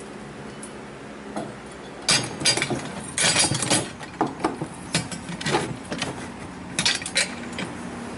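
Saw chain and steel bar clinking and clattering against the aluminium frame and clamps of an Alaskan chainsaw mill as the bar is fitted into it: an irregular run of metallic clinks and rattles starting about two seconds in, thickest a second later, with a few more near the end.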